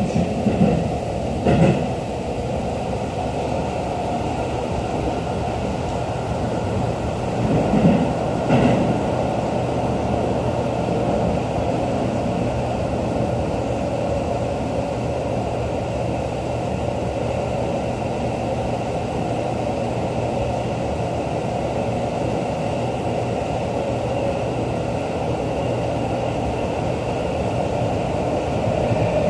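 Running noise inside a Seibu 40000 series electric train car moving through a subway tunnel: a steady rumble of wheels on rail with a faint steady high tone. A couple of brief knocks come about a second and a half in and again around eight seconds in.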